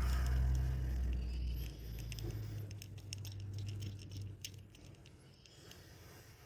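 Cordless Ryobi ONE+ oscillating multi-tool running: a loud low buzz that drops about two seconds in and carries on more weakly until about four seconds in. Clicks and rattles of the tool and workpiece being handled are heard throughout.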